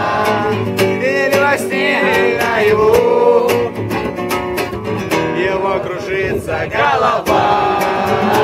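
An acoustic guitar strummed in a steady rhythm, with voices singing a song along to it.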